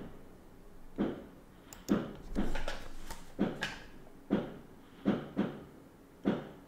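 Firecrackers going off outside, heard muffled from indoors: a string of about nine sharp bangs, roughly one a second, some in quick pairs.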